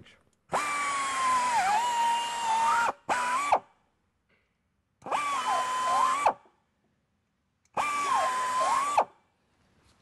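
Low-speed air buffer (2,500 rpm) spinning a carbide cutter to ream out a nail hole in a tire from the inside. It runs in four short bursts with pauses between, three longer and one brief, and its pitch dips briefly several times as the cutter bites into the rubber.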